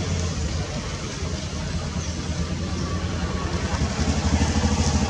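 An engine idling: a steady low rumble with a fast, even pulse, growing louder about four seconds in.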